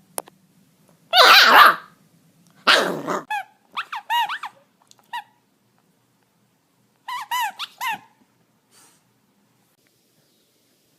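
A dog barking: two loud, harsh barks, then a string of short, high-pitched yelps, and three more yelps later on.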